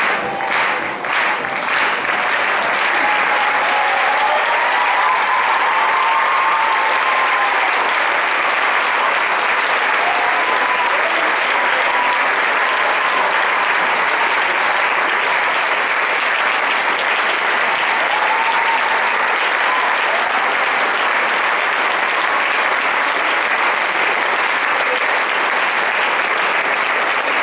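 Audience applauding steadily, a hall full of clapping, with a few voices calling out over it in the first several seconds.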